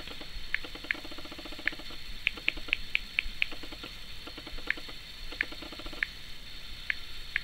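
Short, sharp key clicks from a Samsung Galaxy S4's touchscreen keyboard as a password is typed and corrected, about fourteen taps at an uneven pace, with a quick run of six in the middle.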